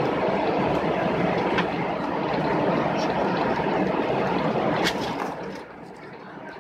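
Airliner cabin noise while taxiing: a steady rumble from the engines and rolling wheels, with a few short knocks. The rumble falls away about five and a half seconds in.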